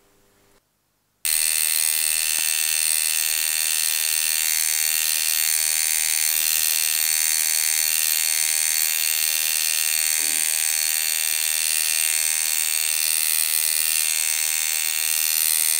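Electric tattoo machine buzzing steadily at a constant pitch, switching on abruptly about a second in.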